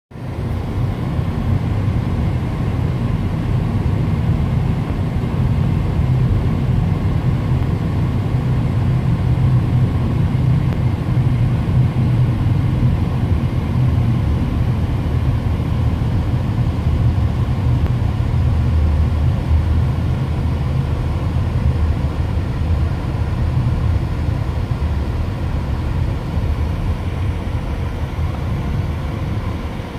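Car driving at a steady speed, heard from inside the cabin: a continuous low rumble of engine and tyre noise.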